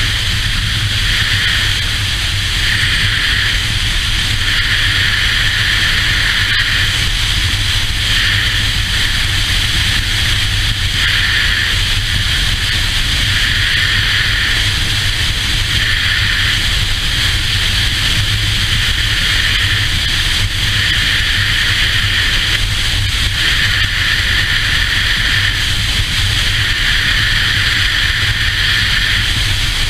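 Touring motorcycle cruising at steady road speed: a constant low engine drone under heavy wind rush on the camera microphone.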